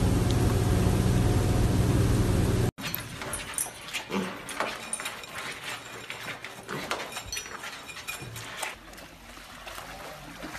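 A loud, steady hum with a low drone that cuts off suddenly under three seconds in. Then two pigs eat from a bowl, with crunching and chewing clicks and a few short calls.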